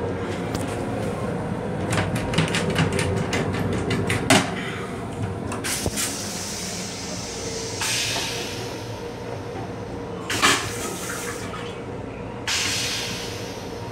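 Metro-North M7 railcar toilet being flushed: water hissing into the stainless steel bowl in several washes. Earlier, a run of clicks ends in a sharp knock as the toilet seat is raised, over the steady hum of the railcar.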